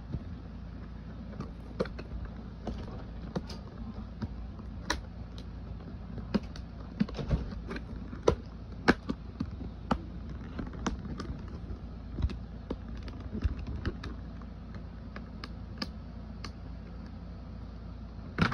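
Irregular clicks, taps and handling noise of a smartphone being worked out of its cardboard retail box and plastic packaging, over a low steady hum.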